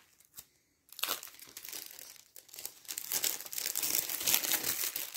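Clear plastic packaging crinkling and rustling as it is handled, starting about a second in and going on with many small crackles.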